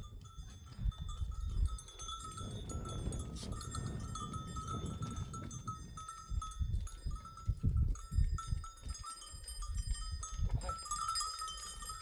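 Bells worn by a herd of goats and sheep, clinking and ringing continuously as the animals move, over a low rumble.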